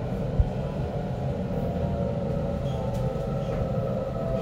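Interior running noise of a Waratah Series 2 (B-set) electric train carriage: a steady low rumble with a faint steady whine over it, and a single knock about half a second in.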